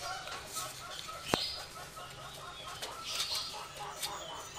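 Chickens clucking faintly in the background, with one sharp click just over a second in.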